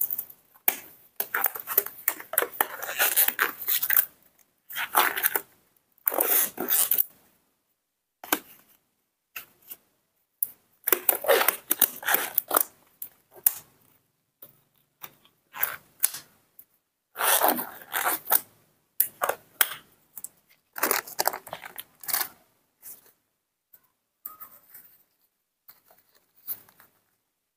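Disposable gloves being pulled onto the hands and worked over the fingers: irregular bursts of rustling and crinkling, fainter near the end.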